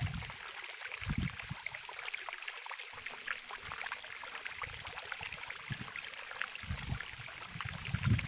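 Water running and trickling in a stream, a steady splashing hiss, with a few soft low thumps.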